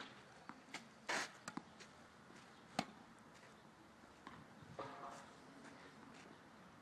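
Tennis balls being struck and bouncing: a handful of sharp, separate knocks in the first three seconds, then a softer scuff about five seconds in.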